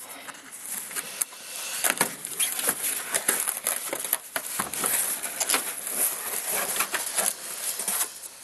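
Utility knife slicing packing tape on a cardboard shipping box, with tape tearing and cardboard flaps scraping open in irregular rasps and clicks.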